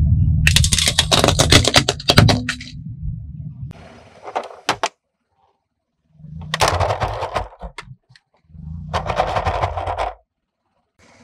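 Car tyre rolling over hard plastic toys and crushing them: rapid cracking and snapping of plastic over a low rumble. It comes in four separate bursts with short silent gaps between, the first the loudest.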